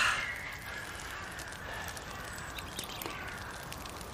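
Campfire crackling faintly over a steady outdoor background hiss, with a few soft ticks. A louder sound dies away in the first half-second.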